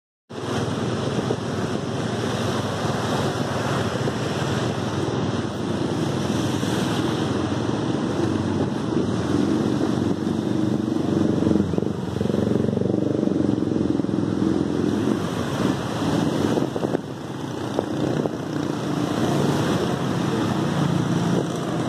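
Motor scooter running steadily as it rides through a flooded street, its tyres swishing through shallow water, with other motorbikes and cars in the flood around it.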